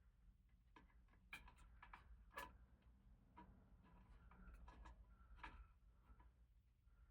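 Faint, irregular small clicks and taps of screws and metal parts being handled as a blade is fastened onto a ceiling fan, two of them louder a little over a second and about two and a half seconds in.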